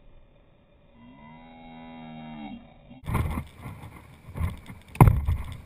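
A long, low, drawn-out voice-like call lasting about a second and a half and falling in pitch at its end. It is followed by loud buffeting rumbles and thumps close to the microphone, the sharpest about five seconds in.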